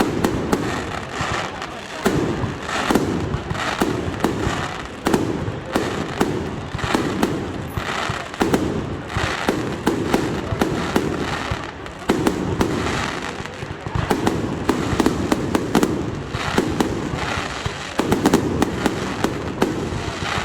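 Aerial fireworks display: shells bursting in quick succession, with many loud bangs and crackles, several a second, without a break.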